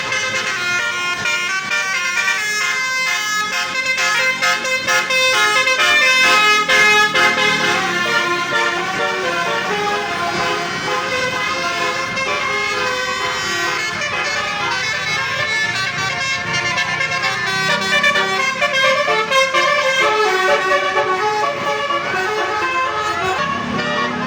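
Basuri multi-tone 'telolet' air horns on a tour bus playing melodies: quick runs of short changing notes in the first half, then longer held notes.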